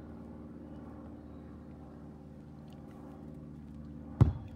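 A single sharp thump about four seconds in as a football is kicked by a sock-covered foot, over a steady low hum.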